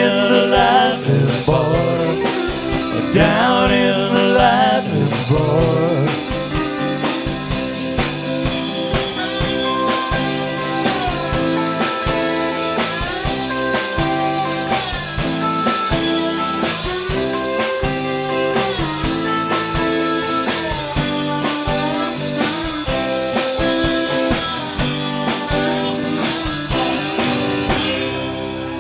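Live country-rock band playing a blues shuffle: the last sung chorus line trails off in the first few seconds, then guitars, pedal steel guitar, bass and drums play on instrumentally, with long gliding notes over a steady drum beat.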